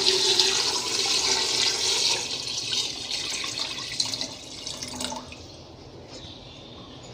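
A stream of water poured into a metal pressure cooker, splashing onto chunks of raw beef, then tapering off and stopping about five seconds in.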